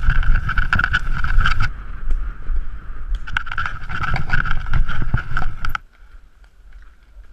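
Mountain bike ridden fast down a rough dirt forest trail: wind buffeting the microphone, repeated knocks and rattles from the bike over bumps, and a steady whine. The noise cuts off abruptly about six seconds in, leaving only a faint background.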